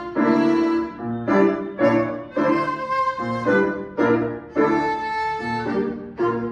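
A violin playing a melody with grand piano accompaniment. The piano's low notes come at a steady pulse under the violin line.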